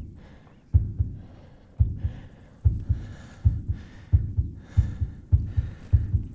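Heartbeat sound effect: low double thumps, like lub-dub, that come faster and faster, from about one a second to about two a second, building tension.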